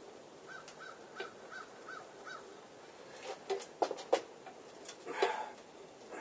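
Scattered sharp clicks and knocks of metal bike parts and tools being handled, the loudest about five seconds in. A bird calls faintly in the background, six short even notes in the first couple of seconds.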